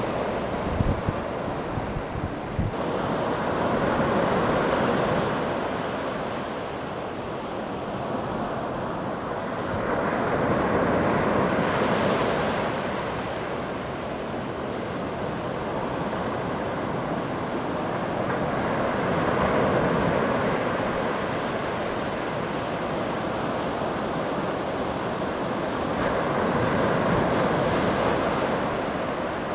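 Ocean surf washing up the beach and draining back, swelling and fading about every eight seconds. Wind rumbles on the microphone in the first few seconds.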